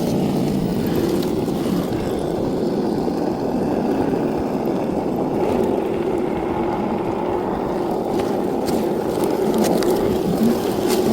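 Radio-controlled off-road car driving, its motor and tyres making a steady rolling rumble, with a few faint clicks near the end.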